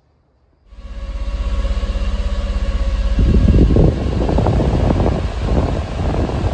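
Heater blower fan of a Mitsubishi Minicab truck cab running, starting abruptly about a second in, then stepped up to a louder rush of air from the vents about three seconds in as the fan-speed lever is raised.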